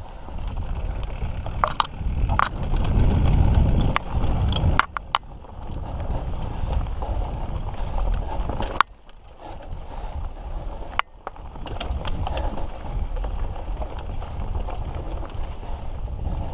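Mountain bike riding over a dirt trail: a steady rumble and rattle of tyres and frame, with scattered sharp clicks and knocks, louder for a couple of seconds near the start.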